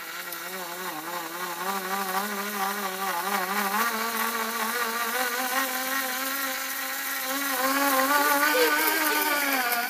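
Small electric motor buzzing steadily under load, its pitch wavering and slowly creeping up, then stopping abruptly at the end.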